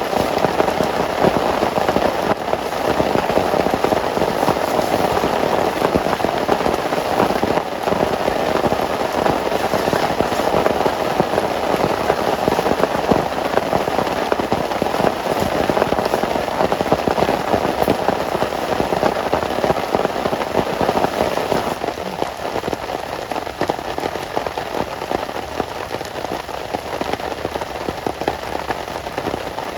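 Heavy rain falling steadily, a dense patter of drops hitting a surface, easing slightly about two-thirds of the way through.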